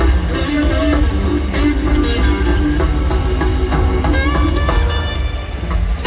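A live blues band playing: electric guitar over bass and drums, with cymbal ticks keeping an even beat.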